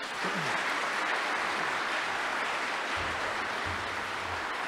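Audience applauding steadily in a large hall at the close of a speech.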